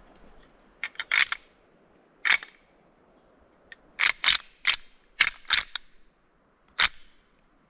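A dozen or so sharp, irregular clicks and taps, bunched about a second in and again from four to six seconds in.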